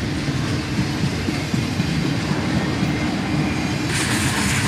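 Freight cars of a passing manifest freight train rolling by, their wheels on the rails making a steady, dense rumble. A brighter hiss joins the rumble near the end.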